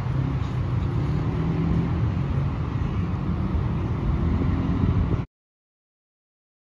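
Steady low rumble of street traffic with wind buffeting the microphone. The sound cuts off abruptly into dead silence about five seconds in.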